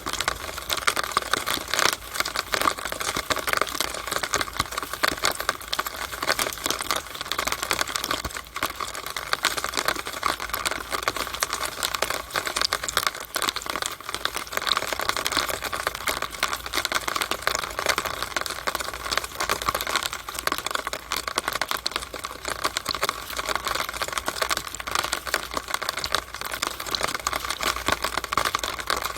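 Rainwater running down a downspout, a steady dense patter of rapid drips and ticks.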